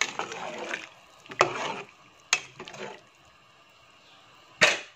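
Metal spoon stirring broth in a metal pot: liquid sloshing and scraping with several sharp clinks of the spoon against the pot, the loudest near the end.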